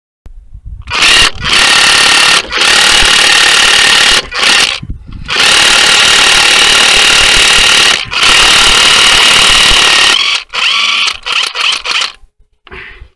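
Impact wrench hammering in several long, loud bursts on the crankshaft pulley bolt of a Toyota 5S-FE four-cylinder engine, breaking it loose to remove the pulley (harmonic balancer). Shorter bursts follow near the end.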